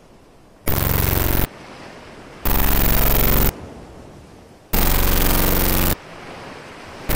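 Harsh glitch noise: three loud buzzing, rattling blasts of about a second each that cut in and out abruptly, with a low hiss between them and a fourth blast starting right at the end.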